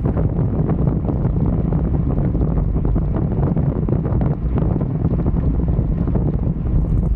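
Steady, heavy wind rumble on the camera microphone of a bicycle moving at race speed, with many small clicks and rattles running through it.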